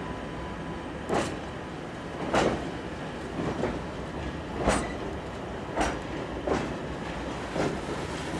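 Flat wagons of a track-laying train rolling slowly along provisional track, the wheels clacking over rail joints about once a second over a steady rumble.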